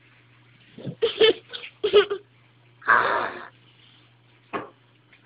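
A young child's short breathy vocal noises: a few quick bursts, then a longer breathy one about three seconds in, over a steady low electrical hum.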